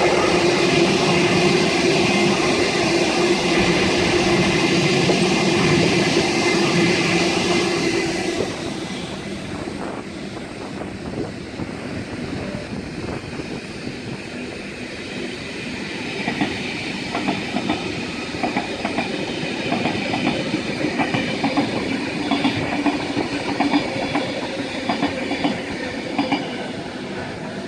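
Electric suburban train passing: a steady whine and rumble for the first eight seconds or so, then quieter, with wheels clicking over the rail joints through the later part.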